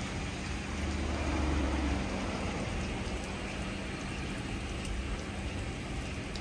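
Istobal M12+ rollover car wash spraying the car with its 80-bar side high-pressure jets: a steady hiss of water pelting the bodywork over a low machine hum, with the low rumble swelling briefly about a second in.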